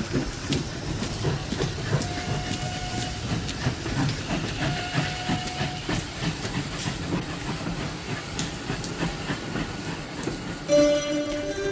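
Steam train running along the track, its wheels clacking over the rail joints in a steady rhythm, with two brief held tones in the middle. Plucked-string music comes in near the end.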